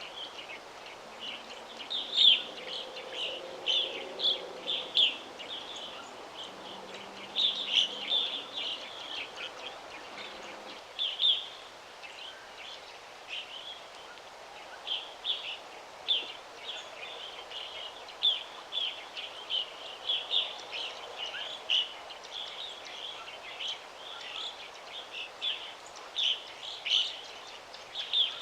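Songbirds chirping: a steady stream of short, high chirps and tweets, several birds overlapping, over a soft continuous background hiss.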